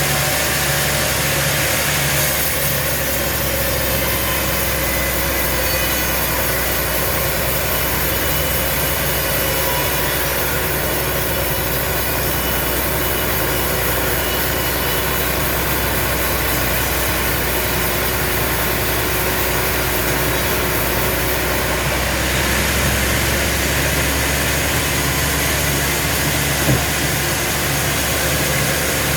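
Sawmill machinery running steadily: a constant engine and motor drone with a hiss over it. One short click sounds near the end.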